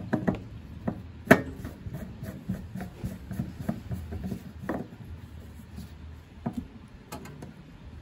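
Screwdriver turning a small screw into the steel base of a microwave oven to fix the replacement turntable synchronous motor: irregular clicks and scrapes of the tip in the screw head and the screw against the sheet metal, with a sharper click about a second in.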